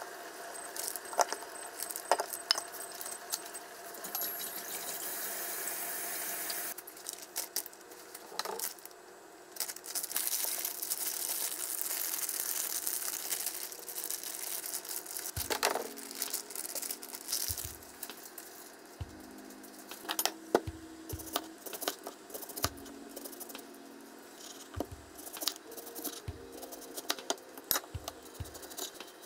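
Close-up kitchen handling sounds: a spoon scraping and clinking in a stainless steel bowl as sauce is scooped out, then a plastic bag crinkling as boiled eggs are worked in it. Through the second half, onion slices are pushed apart into rings on a wooden cutting board, with soft knocks and clicks.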